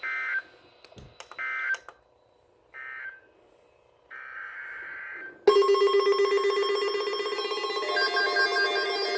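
Emergency Alert System data bursts on a weather radio broadcast: three short, identical bursts about a second and a half apart close the previous warning, then a longer burst begins the next alert. About five and a half seconds in, a loud, steady alert tone starts with a lower buzz beneath it, and more tones join near the end.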